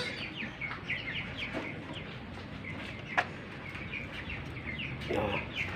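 Birds chirping with many short, quick calls and chickens clucking, including a short clucking call about five seconds in. A single sharp click comes about three seconds in.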